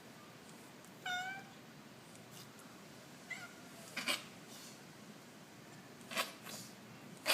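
A domestic cat meows, with a clear slightly falling call about a second in and a fainter one a couple of seconds later. Then come three short, sharp coughs, about four seconds in, about six seconds in, and right at the end.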